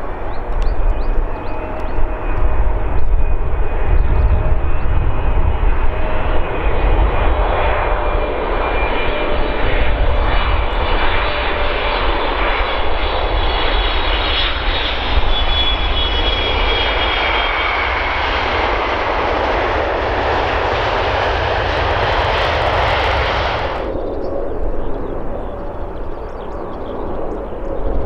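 Jet engines of a United Boeing 777 landing: a steady jet roar with high whining fan tones, growing brighter over the first twenty seconds, with low wind rumble on the microphone. About four seconds before the end it cuts off abruptly to the fainter, duller engine sound of a Boeing 777 freighter on approach.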